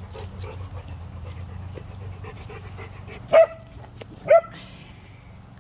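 A dog barks twice, two short sharp barks about a second apart, a little past halfway.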